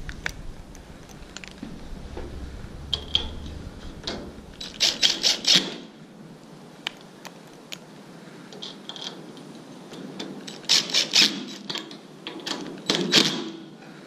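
Cordless DeWalt impact driver driving small pointed screws into the steel edge of a sliding screen door: a short burst of rapid clattering impacts about five seconds in, and two more bursts near the end.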